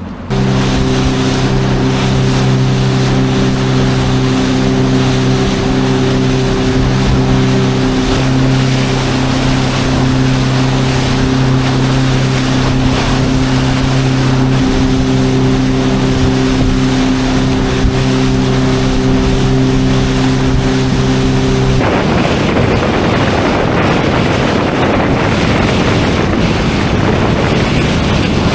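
Boat's outboard motor running steadily under way, with wind and water rushing. About three-quarters of the way through, the engine tone drops out, leaving only wind and water noise.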